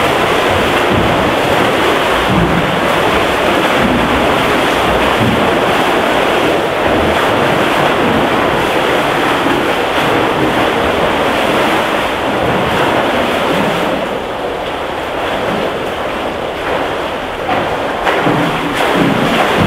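Steady wash of water noise in an indoor swimming pool: swimmers splashing through the water and the pool's water churning, dipping a little about two-thirds of the way through.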